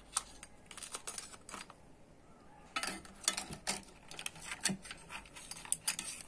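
Metal serving spoon clinking and scraping against a heavy pot as curried crab is dished out, in scattered sharp clicks that come thicker about three seconds in and again near the end.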